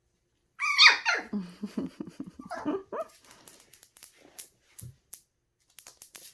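Seven-week-old puppies yipping and whining, a burst of high cries that fall in pitch over the first half, followed by scattered light clicks.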